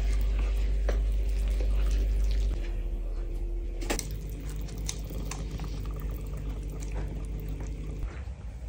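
Thick carrot cake batter being stirred with a fork in a glass bowl, then poured from the bowl into a lined loaf tin: wet, sticky squelching and slopping, with a few small clicks, over a steady low hum.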